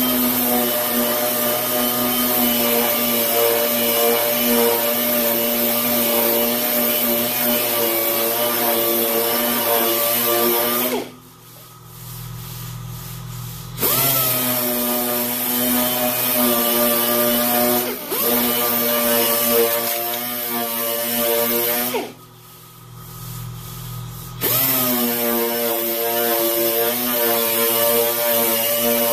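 Air-powered dual-action sander running with a steady whine as it sands body filler on a steel door panel. It is let off twice for a few seconds, spinning down with a falling pitch, then starts again.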